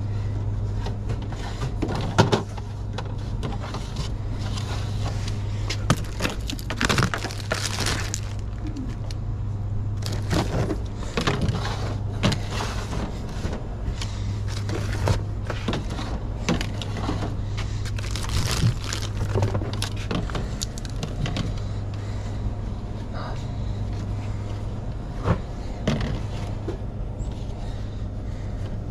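Plastic sports-drink bottles being handled and set onto metal store shelving: irregular clicks, knocks and scrapes as they are slid and lined up, over a steady low hum.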